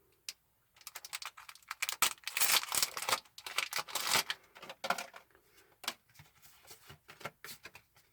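Foil wrapper of a Pokémon card booster pack being torn open and crinkled: a dense run of sharp crackles and rustles, loudest about two to four seconds in, then thinning out.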